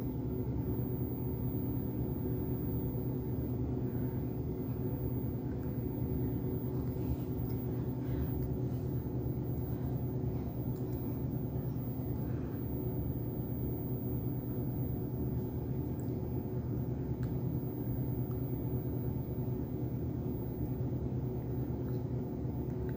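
Steady low machine hum with several fixed tones, a constant background drone, with a few faint small clicks scattered through it.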